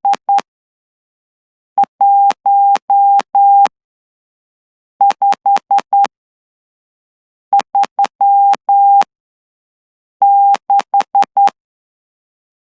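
Morse code sidetone from a CW Player interface, a steady beep near 800 Hz, keyed by hand on a straight key in dots and dashes at about 12 words per minute. Each character is sent on its own with pauses of over a second between, and there is a sharp click at every key-down and key-up.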